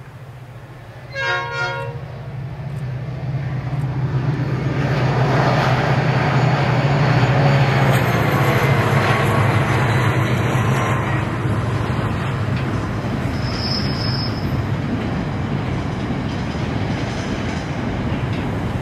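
Three NSW 81 class diesel-electric locomotives sound a brief horn blast about a second in, then their engines drone past, loudest a few seconds later. A long train of cement tank-container wagons follows, rolling by with a steady clatter of wheels on rail.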